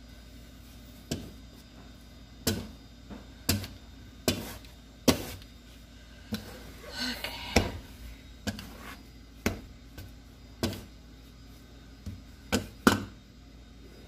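Sticky bread dough being cut with a bench scraper and kneaded and folded by hand on a floured silicone baking mat, giving sharp knocks about once a second, with a short hiss about seven seconds in.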